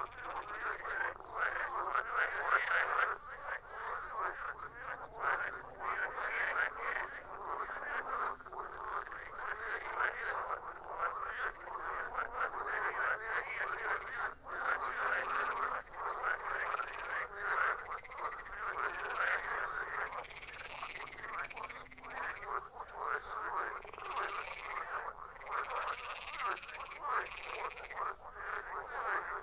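A chorus of many frogs croaking without a break, their rapid, overlapping calls forming a dense, steady din.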